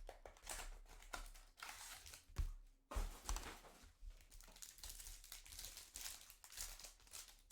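Crinkling and rustling of plastic card packaging, with scattered crackles as trading card packs are opened and the cards handled.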